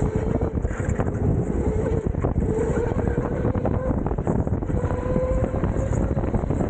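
Rental go-kart driven hard, heard from onboard: a motor whine that rises and falls with speed through the corners, over a steady rumble of tyres and chassis with frequent short rattles and knocks.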